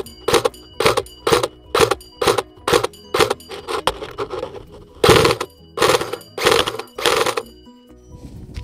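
Classic Army ISSC MK22 airsoft electric rifle firing semi-auto in a steady string of shots, about two a second. The shots are softer for a short stretch in the middle and stop about a second before the end.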